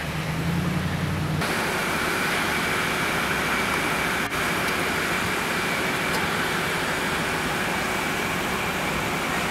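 Steady outdoor noise of idling vehicles and traffic, with a faint steady high whine. A low hum cuts out about a second and a half in.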